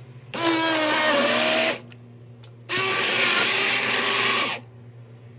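Handheld immersion blender run in two short bursts, the first about a second and a half and the second about two seconds, with a pause between them. Its motor whines and the liquid churns as it purées banana into a pot of thickened almond-milk atole.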